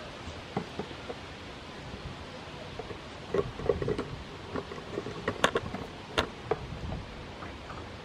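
A goat kid's hooves tapping on a wooden pallet bench as it steps along and nibbles at a hand: a scatter of small sharp clicks and knocks between about three and six and a half seconds in. Behind them runs a steady outdoor breeze hiss.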